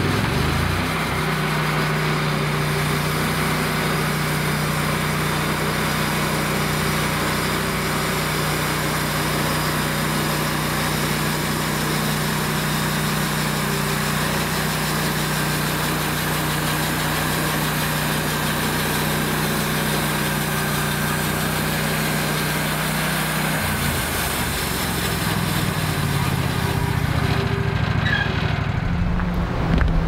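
Wood-Mizer LX150 portable bandsaw mill running steadily, its band blade cutting lengthwise through a board. About 24 seconds in the engine's tone changes, and the high cutting hiss fades near the end.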